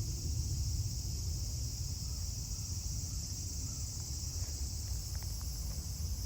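Steady high-pitched chorus of insects, with a constant low rumble underneath.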